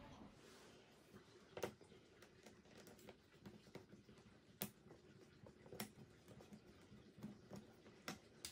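Near silence broken by a handful of faint, sharp clicks: a small hand screwdriver and fingers handling the plastic chassis of a Tamiya TL01 RC car as screws are worked.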